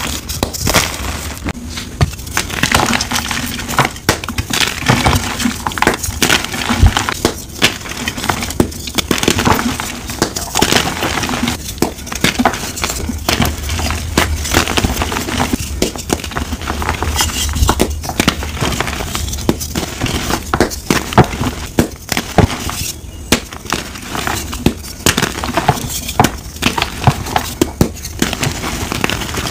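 Dyed, glitter-coated blocks of reformed gym chalk crushed, crumbled and snapped apart by hand: a dense, continuous run of crisp crunching with many sharp little cracks.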